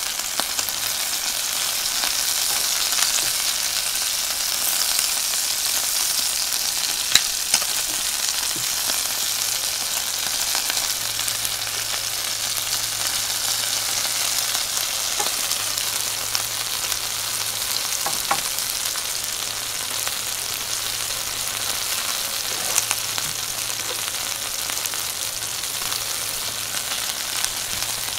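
Wagyu ribeye steak and vegetables sizzling in a cast-iron skillet: a steady frying hiss with occasional sharp pops of spattering fat, two close together about seven seconds in.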